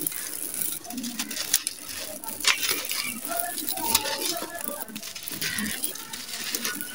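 Dry sand-cement lumps crushed and crumbled in bare hands: a dense gritty crunching of many small sharp crackles over a steady hiss of falling grit and powder.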